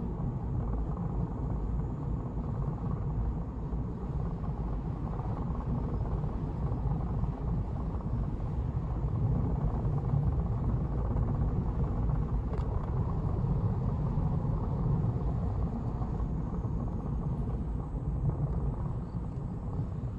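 A car driving along a road, heard from on board: steady low rumble of road and engine noise.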